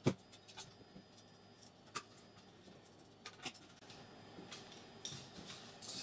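Scattered light clicks and taps of small metal parts being handled as a graphics card's cooler is fitted back onto the card and screwed down. The sharpest click comes right at the start, with another about two seconds in and a cluster near the end.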